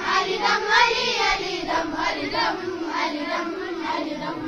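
Children singing a slow melody with long, wavering held notes.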